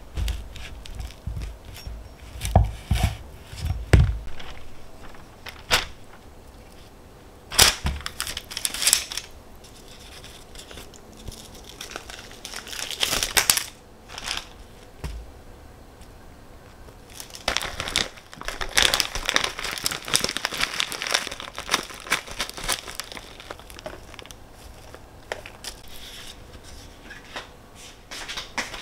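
Kitchen prep handling sounds: several stretches of rustling and crinkling, with scattered sharp clicks and knocks in between.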